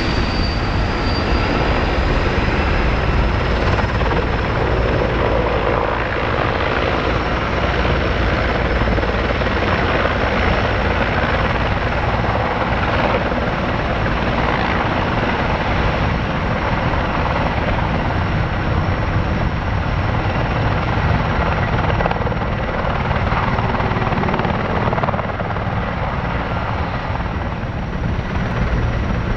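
Erickson S-64 Air-Crane heavy-lift helicopter hovering low: steady loud rotor and twin-turbine noise with a thin high whine over it. The level drops slightly near the end.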